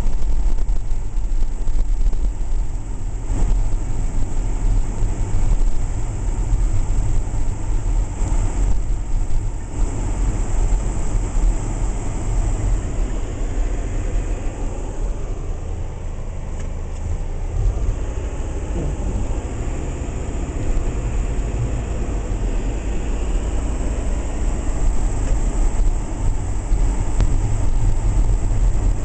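Engine and road noise of a moving car, heard from inside the cabin as a steady low rumble. It eases a little around the middle and picks up again toward the end.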